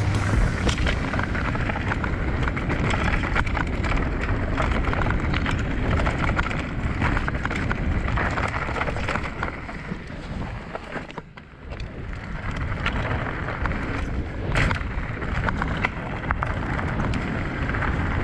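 Mountain bike riding fast down a rocky dirt trail: knobby tyres rolling over dirt and loose stones, with the bike rattling and clattering over the bumps and wind noise on the microphone. The noise dips briefly for a moment about eleven seconds in, and a sharp knock comes a few seconds later.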